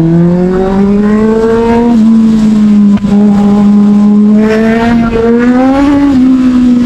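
Motorcycle engine pulling hard, its pitch climbing for about two seconds, then holding at steady revs with a brief dip about three seconds in and another rise and fall near the end.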